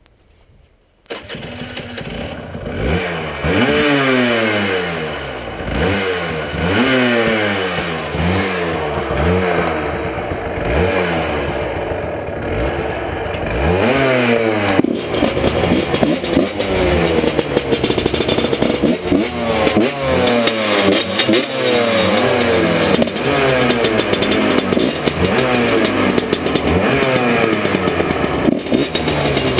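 125 cc motorcycle engine revved over and over, its pitch climbing and falling back in quick blips; it comes in sharply about a second in.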